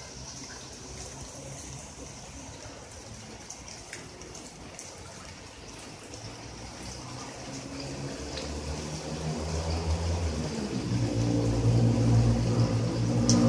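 Floodwater running and rain falling, a steady watery hiss. About two-thirds of the way in, a low rumble builds and becomes the loudest sound.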